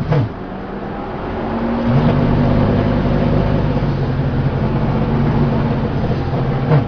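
A vehicle engine running at steady revs under way. It gets louder and higher about two seconds in, with a brief swoop in pitch near the start and near the end.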